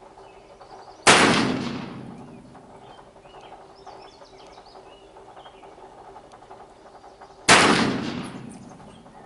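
Pietta 1858 .44-calibre black-powder percussion revolver firing two shots about six seconds apart, each a sharp report trailing off over about a second.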